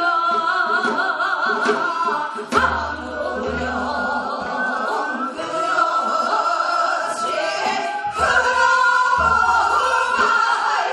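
A group of women singing a Korean folk song (minyo) together through microphones, the sung line held and bent with a wide, wavering vibrato.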